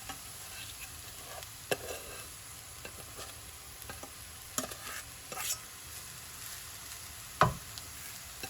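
Cooked rice being stirred and tossed in a hot pan of frying vegetables: a steady low sizzle under scattered scrapes and taps of the spoon against the pan, with one loud knock near the end.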